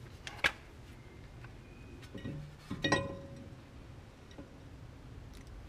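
Brake disc being test-fitted onto the wheel hub: a light click about half a second in, then one sharp metallic clank near the middle that rings briefly.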